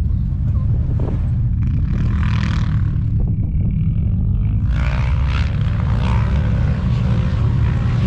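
Vehicle engines rumbling steadily, with a wavering engine note rising and falling from about five seconds in.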